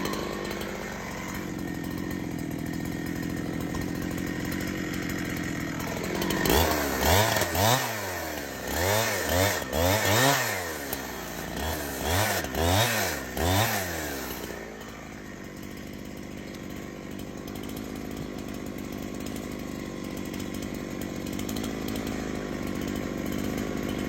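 Chainsaw engine running steadily, revved up and down several times in quick succession partway through, then settling back to a steady lower run.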